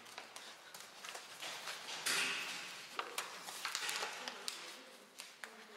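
A large sheet of paper crinkling and crackling as it is crumpled and pressed against a face, with many sharp crackles and a louder rush of rustling about two seconds in.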